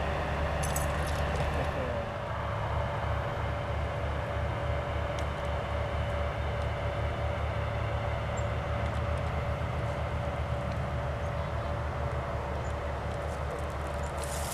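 A steady low mechanical drone with a constant hum running through it, unchanging throughout.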